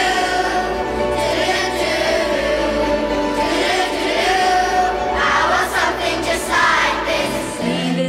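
Children's choir singing with instrumental accompaniment. Near the end it gives way to held, steady instrumental notes.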